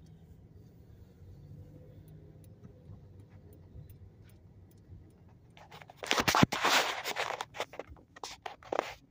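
Chevrolet car engine idling, a quiet steady hum from inside the cabin. About six seconds in, loud scraping and crackling rubs and clicks take over: the recording phone being handled and shifted.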